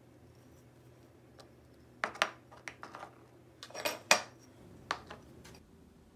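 Handmade glazed ceramic cups and plates being handled and set down on a hard tabletop, clinking and knocking a few times. There is a pair of clinks about two seconds in, the loudest knocks around four seconds in, and a last few near five seconds.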